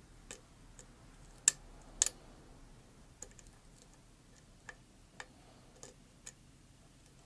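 Lock pick working the pins of a pin-tumbler challenge lock: scattered small, sharp metallic clicks at irregular intervals, the two loudest about a second and a half and two seconds in.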